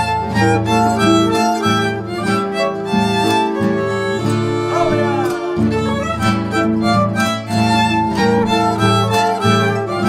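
Small folk string ensemble playing: a violin carries the melody over strummed guitars and low bass notes in a steady rhythm, with a short sliding note from the violin near the middle.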